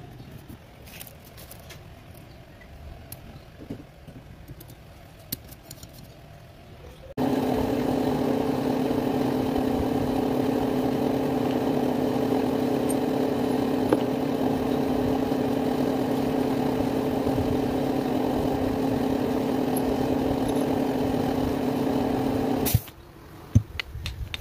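Light clicks and taps of metal engine parts being handled. About seven seconds in, a loud, steady machine drone of unchanging pitch starts abruptly and runs until it cuts off suddenly near the end, followed by a few sharp metal clinks.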